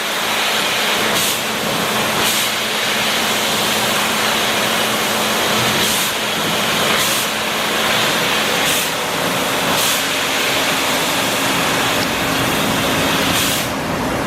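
Trumpf TruLaser 3030 fiber laser cutting machine running: a loud, steady hiss with a faint hum underneath, broken by brief louder bursts of hiss every second or so at irregular intervals.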